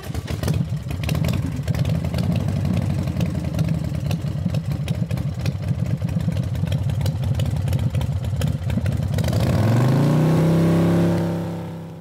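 Engine running with a rapid, even throb, revving up with a rising pitch near the end and then fading out.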